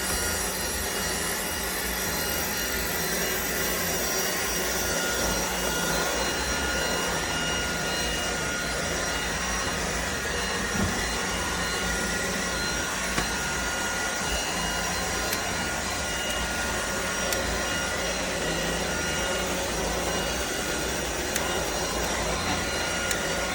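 Prasky cordless stick vacuum running steadily: a constant motor whine over a rushing airflow hiss.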